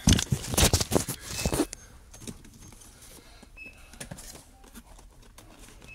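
Cardboard model boxes being handled on a shop shelf: a quick run of rustles and knocks in the first second and a half, then faint scattered clicks and scrapes.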